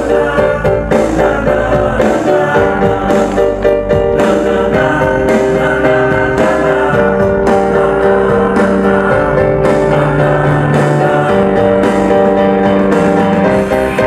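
Live rock band playing loud: drums, electric guitar and keyboards. The drum beat thins out in the middle while chords are held, then comes back near the end.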